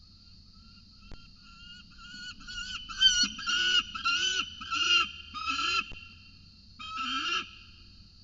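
Peregrine falcon calling: a run of harsh, rising-and-falling calls, about two a second, growing louder, then one more after a short pause near the end.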